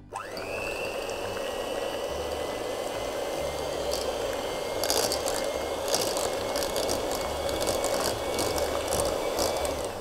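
Electric hand mixer starts with a rising whine, then runs at a steady high pitch as its beaters churn a thick butter and ground-almond cream in a stainless steel saucepan, with a few clicks and scrapes against the pan. It is working out lumps of ground almond, and it cuts off at the end.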